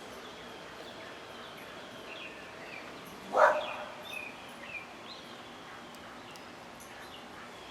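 A dog barks once, sharply, about three and a half seconds in, over birds chirping faintly.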